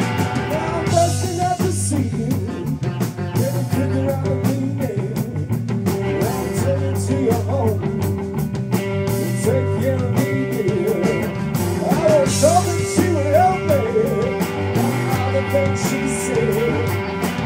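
Live rock band playing: a Stratocaster-style electric guitar plays lead lines that bend up and down in pitch over bass guitar and a Sonor drum kit keeping a steady cymbal beat.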